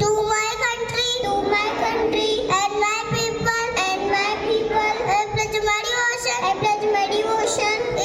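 Children singing a song, with held notes that glide between pitches.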